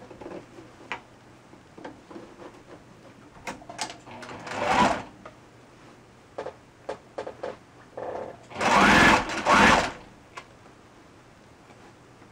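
Electric sewing machine stitching in two short runs: a brief one about four seconds in and a longer one of about a second and a half later on, with small clicks in between.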